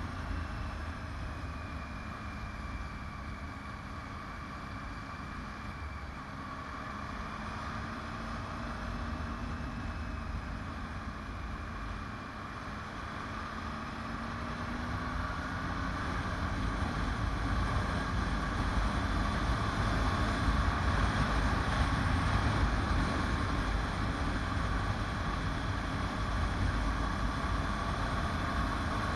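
Motorcycle engine running on the move with wind rushing over the bike-mounted microphone; the engine note slowly rises and falls, and the sound grows louder from about halfway through.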